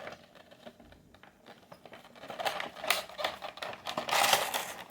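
Toy packaging crinkling and rustling as it is handled to free an action figure, light at first, then busier with quick crackles through the second half.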